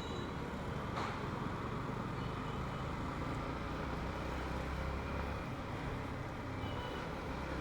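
Steady rumble of road traffic heard from a moving rider's action-camera mic, with a faint click about a second in.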